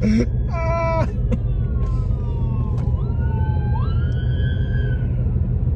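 Emergency-vehicle siren wailing, its tone falling slowly, then sweeping back up about two-thirds through and fading. It is heard from inside a moving car over steady road rumble.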